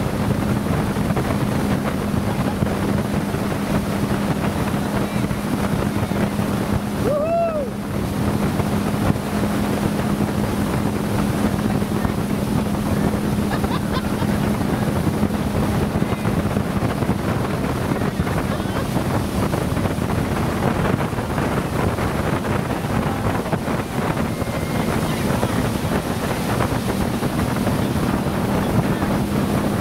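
Motorboat engine running steadily under way, with water rushing along the hull and wind buffeting the microphone.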